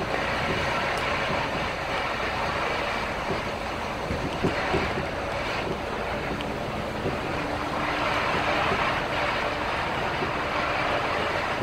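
Steady engine and road noise inside a moving city bus, with a faint low hum under a hiss that swells and eases every few seconds.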